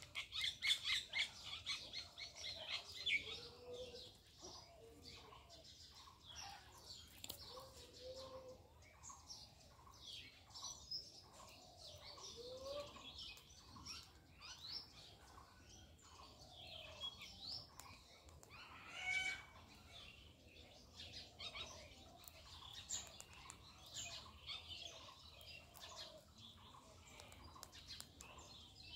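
Birds chirping and calling: a fast run of high chirps in the first few seconds, then scattered chirps and calls, one rising call about two-thirds of the way through.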